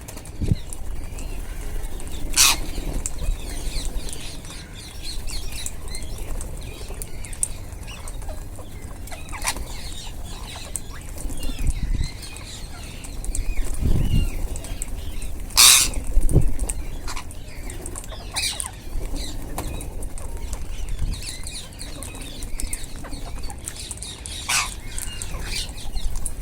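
Flock of wild Indian ringneck parrots: wings flapping and steady soft chatter, broken about five times by a short sharp call or flap.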